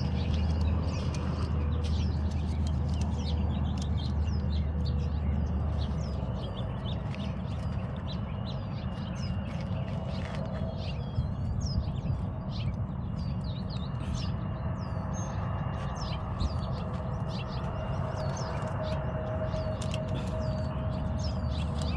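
Small birds chirping: many short, quick high calls, one after another, over a steady low background rumble.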